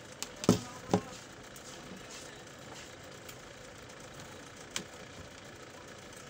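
Two knocks about half a second apart as a plastic photo control receptacle is set down on a wooden workbench, then a light click a few seconds later, over a steady background hum.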